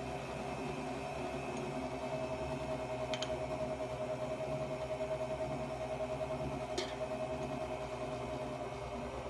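Electric stand mixer running at a steady speed, giving a motor hum with a steady whine as its dough hook turns flour in the steel bowl at the start of kneading. There are two light clicks, about three and seven seconds in.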